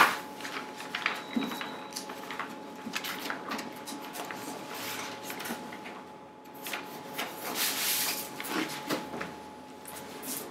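Large paper posters rustling and sliding against each other and against the stiff cardboard of a portfolio as they are leafed through and one is pulled out, with a sharp knock at the very start and a louder bout of paper rustling about three-quarters of the way in.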